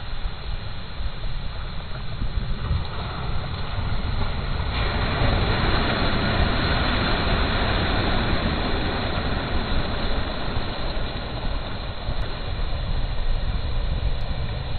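Small sea waves breaking and washing up the shore in foam, the surf swelling louder about five seconds in and easing off after several seconds, over a steady low rumble.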